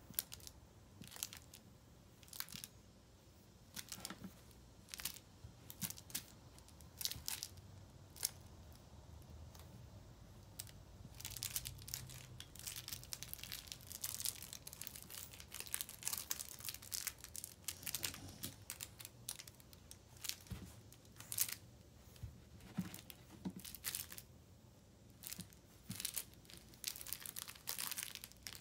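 Irregular rustling, crinkling and scratching as a French Bulldog puppy bites, tugs and paws at a plush toy held in a hand, busier in the middle and again near the end.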